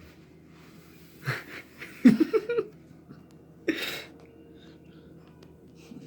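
A young boy's hiccups: three sudden, gasping hiccups about one, two and four seconds in. The middle one is the loudest and is voiced.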